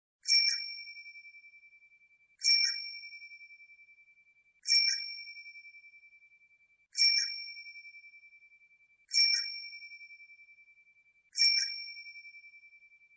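Bicycle bell rung six times, about every two seconds. Each ring is a sharp, bright strike followed by a long, slightly wavering fade.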